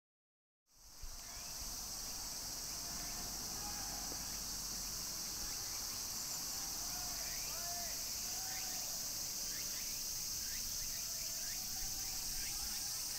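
Cicadas droning in a continuous, steady high chorus of summer insect song, fading in about a second in.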